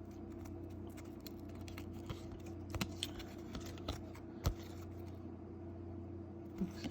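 Baseball trading cards handled and flipped through by hand: scattered soft clicks and taps, the sharpest about three and four and a half seconds in, over a steady low hum.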